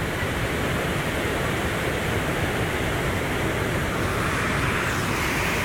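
Yaremcha waterfall on the Prut river: falling water rushing steadily, a loud, even noise with no let-up.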